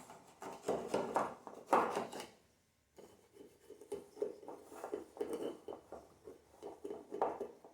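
Irregular scraping, rubbing and light knocks of a cake pan being handled to turn out a baked cake, the loudest knock about two seconds in.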